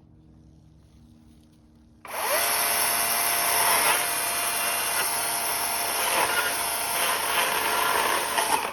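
Chainsaw starting up about two seconds in with a quick rise in pitch, then running steadily at high speed for about six seconds before it cuts off suddenly.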